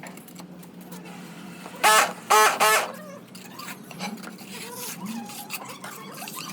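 A small dog yipping: three short, high yips in quick succession about two seconds in, then faint scattered clicks.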